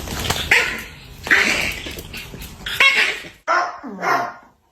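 A dog barking repeatedly, about five loud barks spread over a few seconds.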